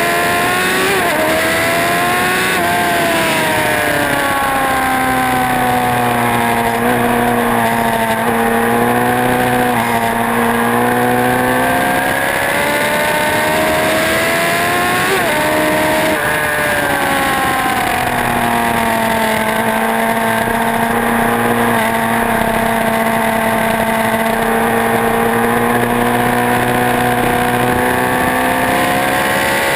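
Motorcycle engine running hard on a race track, its revs sweeping slowly down and back up as it goes through the corners. There are sharp breaks in pitch near the start and about halfway through.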